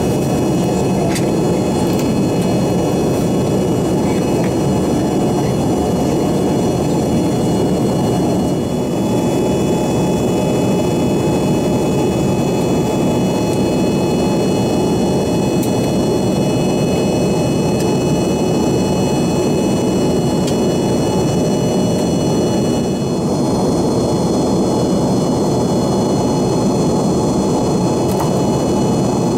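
Cabin noise of an Embraer ERJ-145 in flight: the steady roar of its rear-mounted Rolls-Royce AE 3007 turbofans and airflow, with a high, whining buzz of several steady tones over it.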